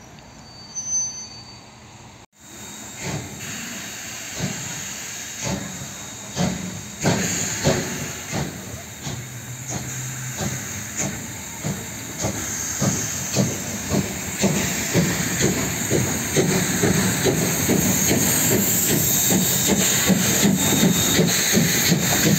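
ČSD class 555.0 steam locomotive pulling away. Its exhaust chuffs start at about one beat a second and quicken to about three a second, growing louder, with steam hissing throughout.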